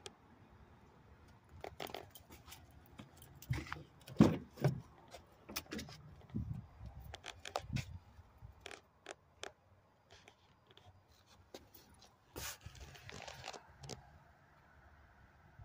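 Scattered clicks, knocks and rustling of someone moving about and handling things in a pickup truck's cab, with a dull thump about four seconds in and a brief scraping rustle near the end.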